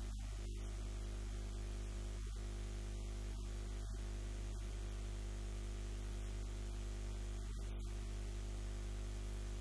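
Steady electrical mains hum with a ladder of overtones, under an even hiss.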